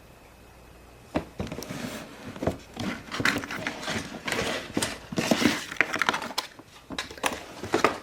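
Plastic toy packaging crinkling and rustling, with sharp clicks and knocks, as a toy carry case is handled and unwrapped. It starts about a second in and goes on irregularly.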